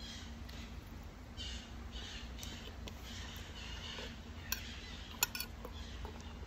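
Faint chewing of a mouthful of rice, then a metal spoon clinking and scraping against a glass plate a few times near the end.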